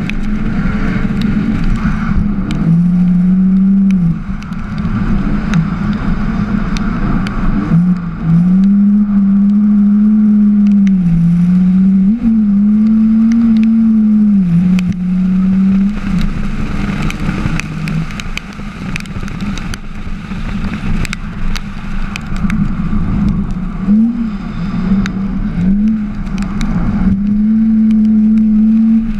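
Drift car's engine heard onboard, its revs rising and falling as the car slides through corners. It is held steady at high revs for several seconds at a time, with quick lifts and blips of the throttle in between.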